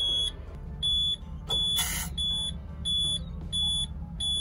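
Electronic warning beeper sounding a regular chain of short, high beeps, about three every two seconds, over a steady low hum. A short burst of noise comes about two seconds in. No engine cranking is heard.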